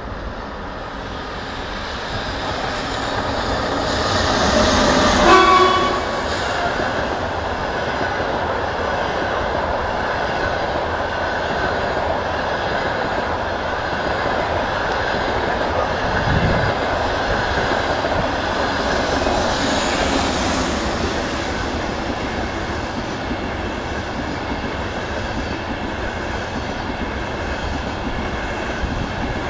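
Frecciarossa high-speed train approaching and passing through the station. A short horn blast sounds about five seconds in, at the loudest moment, followed by a long, steady rush and rumble of the carriages going by on the rails.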